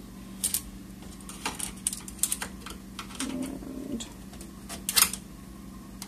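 Scattered sharp clicks and light taps of a screwdriver and small parts being handled inside an all-in-one PC's metal chassis, the sharpest click about five seconds in, over a steady low hum.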